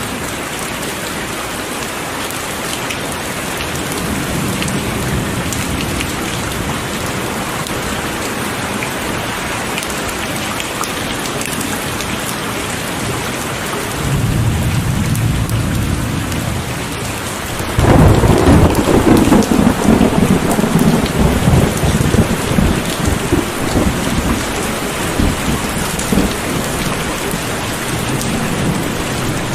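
Heavy rain falling steadily, with thunder: a low rumble builds about halfway through, then a sudden loud clap that rolls and rumbles away over several seconds.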